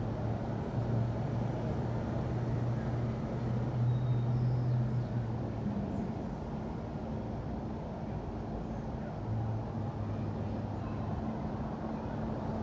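City street traffic: a steady low engine hum and road noise, with a deeper drone that swells for the first five seconds and again about nine seconds in as a vehicle passes or idles.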